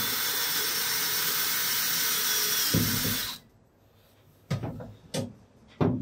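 DeWalt cordless drill/driver with a hex nut-driver bit driving a screw down through a plywood countertop. The motor runs steadily for about three seconds and stops, followed by a few short knocks.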